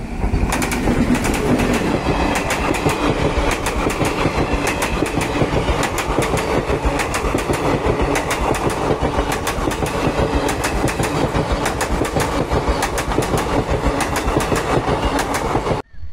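Indian Railways express passenger train, hauled by an electric locomotive, passing close by: a loud, steady rush of the coaches with rapid, irregular clatter of the wheels over the rail joints. It cuts off suddenly near the end.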